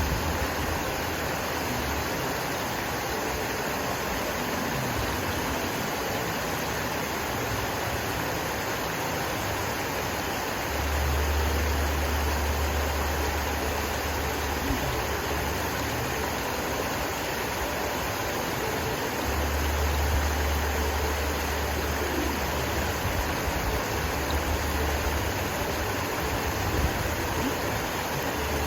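Man-made stream gushing over rocks and boulders: a steady, even rushing of water. A low rumble joins it for several seconds at a time, about a third of the way in and again past the two-thirds mark.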